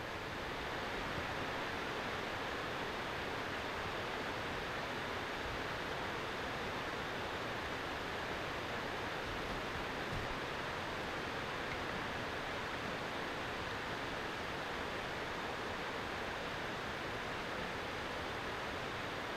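Steady, even rushing outdoor ambience with no distinct events, the kind made by wind or distant water.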